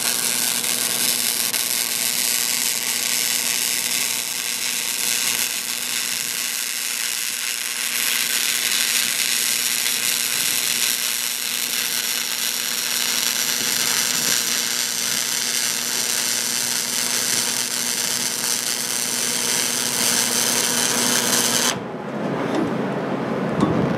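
Wire-feed (MIG) welder arc burning in one long continuous bead on steel tubing: a steady, even sizzle over a faint steady hum. The arc cuts off abruptly about 22 seconds in, followed by a few light knocks.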